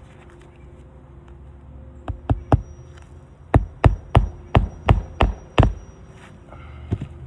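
Hammer driving new nails through an asphalt shingle into the roof deck: a quick run of three blows about two seconds in, then seven blows at about three a second, and one lighter blow near the end.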